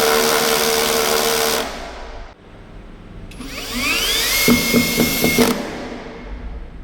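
Dekton M21-ID13100PRO 21V cordless drill running at speed, then stopping about a second and a half in. About three seconds in it spins up again with a rising whine, runs steadily and stops again near the end.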